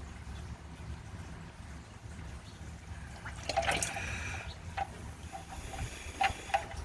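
Engine oil trickling and dripping out of the oil pan's drain hole, with a cluster of sharp ticks about halfway through.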